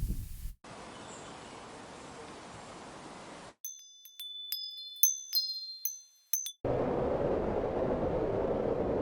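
Wind chimes ringing with several bright strikes, between two stretches of wind. It opens on a faint steady hiss of wind, cuts to the chimes for about three seconds, and a little before two-thirds through cuts to a louder, steady rush of wind.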